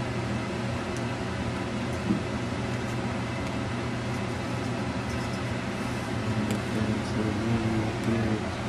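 A steady low mechanical hum, with a single light knock about two seconds in.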